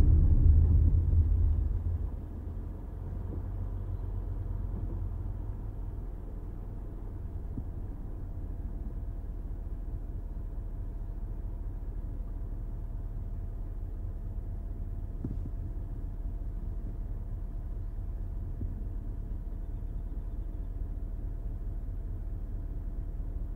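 Mazda CX-5 heard from inside the cabin: road and engine noise falls away about two seconds in as the car comes to a stop, then the engine idles steadily.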